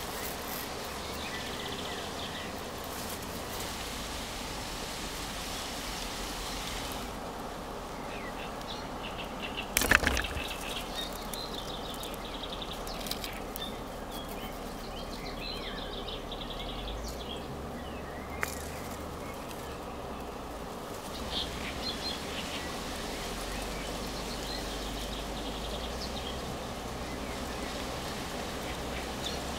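Steady outdoor background noise with birds chirping now and then, and one sharp knock about ten seconds in.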